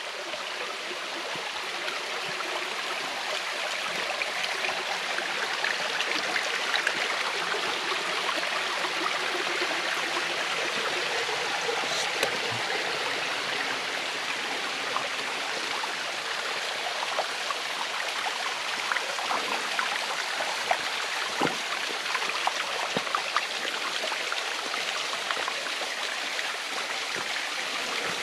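Creek water rushing and cascading over rocks in a steady wash that grows a little louder over the first few seconds.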